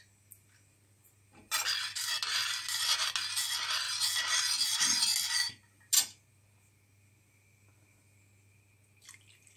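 Milk poured slowly from a glass into tea boiling in a pot, a hissing splash lasting about four seconds, followed by one sharp clink about a second later.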